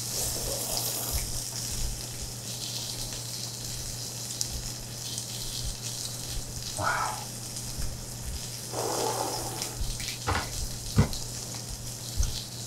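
Pork belly and whole garlic sizzling on a grill plate, a steady hiss throughout. Over it, noodles are slurped and chewed at the start, and a couple of sharp knocks come near the end.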